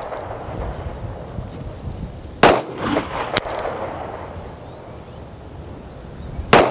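Slow aimed fire from a semi-automatic pistol: two sharp shots about four seconds apart, the second right at the end, with a light tick about a second after the first.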